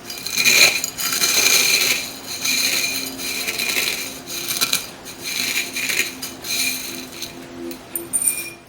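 Crisp fried omapodi (gram-flour sev) being broken up, crackling and crunching in repeated bursts.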